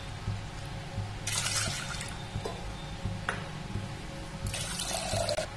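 Water poured from a small glass bowl into an aluminium pot, in two short pours about three seconds apart, with a light knock between them.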